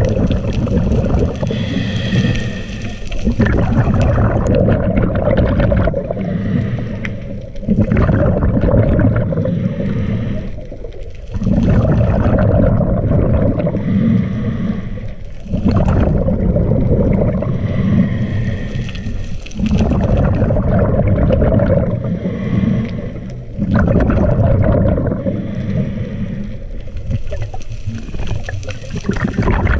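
Scuba diver breathing through a regulator: a steady cycle of inhaling through the regulator and exhaling bursts of bubbles, about one breath every four seconds.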